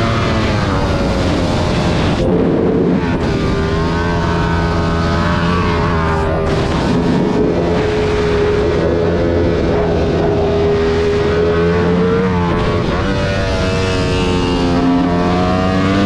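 Ducati Panigale V4 R superbike's V4 engine at racing speed, heard from on board with wind rush. The engine note holds high and steady for long stretches, dips briefly about two seconds in and again around twelve seconds in, then climbs near the end.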